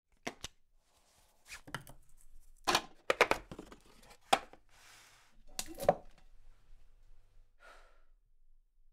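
Objects being handled on a tabletop: a string of sharp taps and knocks with some rustling, loudest around three seconds in. The handling includes a sheet of old paper and a cardboard egg carton.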